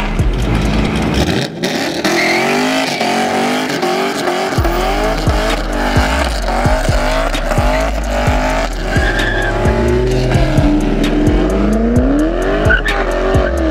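Car engines revving up and down over and over, with tires squealing as cars spin their wheels.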